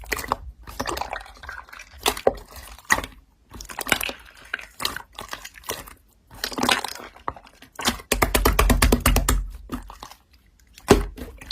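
Slime being squeezed and poked by hand: a string of wet clicks and pops, with a fast, dense run of clicks about eight seconds in.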